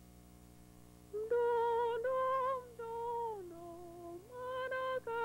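A solo female voice singing a slow melody of long held notes, coming in about a second in, with short falling slides at the ends of phrases.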